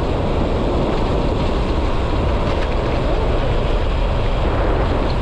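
Steady wind rumble on a GoPro 9's microphone while riding a road bike.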